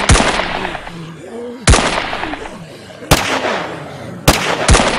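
Pistol gunshot sound effects: about five sharp shots at uneven intervals, the last two about half a second apart, each trailing off in a long echoing tail.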